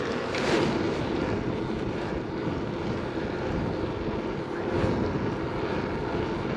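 Steady rolling noise of a BMX bike ridden over wet asphalt: tyre hiss mixed with wind rushing over the microphone, with a faint low hum underneath.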